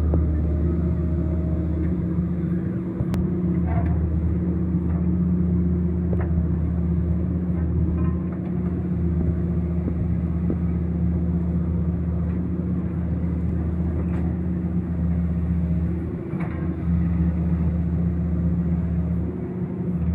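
Diesel engine of a horizontal directional drilling (HDD) rig running steadily with a low, even hum, easing off briefly twice.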